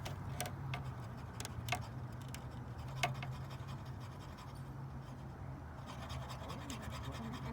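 Test light probe scraping and clicking against metal while ground points are checked for a bad ground, a few sharper clicks over a steady low hum.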